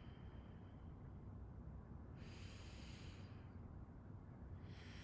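A person's slow, deep breaths, faint and airy: one lasting about a second about two seconds in, and another starting near the end.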